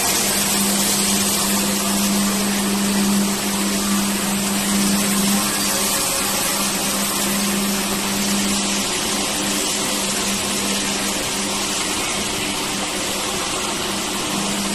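Electric single-disc floor scrubbing machines running steadily, their brushes scrubbing a wet concrete floor: a constant motor hum under an even scrubbing hiss.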